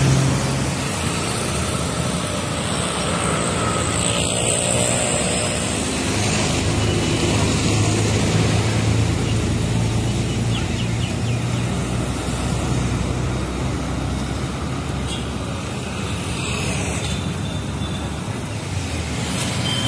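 Steady road traffic and vehicle engine noise, heard while moving along a city road.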